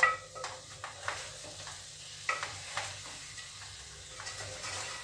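A utensil stirring a simmering fish curry with coconut milk in a pan, with a soft sizzle and several light clicks of the utensil against the pan.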